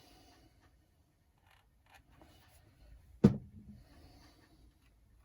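Faint handling and light scraping of a hand tool as a bolt is started by hand into an RC car's plastic diff, with one sharp knock about three seconds in.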